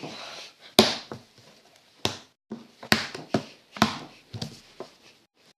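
A lump of slime slapped down onto a table again and again: a string of sharp smacks, four loud ones about a second apart with softer ones between.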